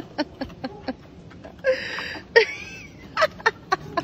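A dog scrabbling its way up while carrying a stick: a run of quick, uneven clicks and knocks from claws and the stick. About two and a half seconds in there is a short vocal sound with a bending pitch.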